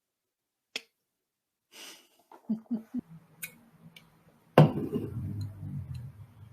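A woman's loud belch about four and a half seconds in, starting suddenly and trailing off low over a second or so. Before it come a few sharp clicks and three short low throaty sounds.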